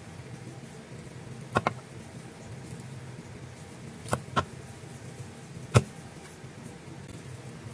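Chinese cleaver chopping through steamed chicken onto a thick round wooden chopping block: five sharp chops, two quick ones about a second and a half in, two more around four seconds, and a single loudest chop near six seconds. A steady low hum runs underneath.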